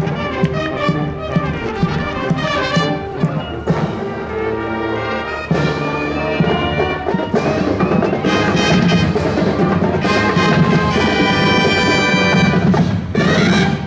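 A high school marching brass band playing a march: trumpets and trombones carry the tune over marching drums and percussion.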